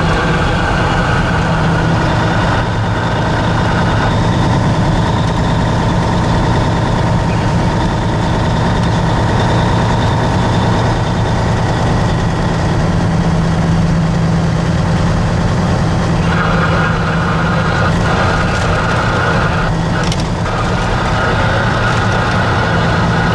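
Heavy truck's engine running steadily while driving, heard from inside the cab, with a steady high whine that fades out a few seconds in and comes back past the middle.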